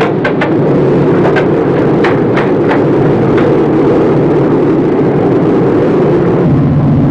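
Heavy engines running with a steady drone, with a scattering of sharp knocks in the first few seconds. Near the end the drone shifts to a lower, steadier hum.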